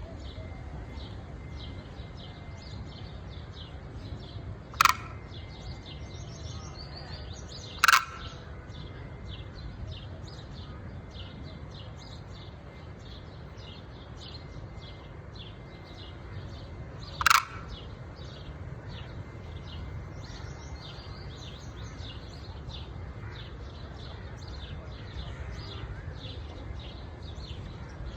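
Cranes giving three loud, very short calls, about five, eight and seventeen seconds in, over a steady chorus of rapid high chirping and a low outdoor rumble.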